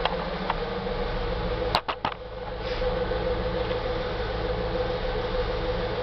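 The 5.7-litre LS1 V8 of a 2001 Pontiac Firebird Formula idling steadily while warm. A few sharp knocks about two seconds in come from the camera being handled.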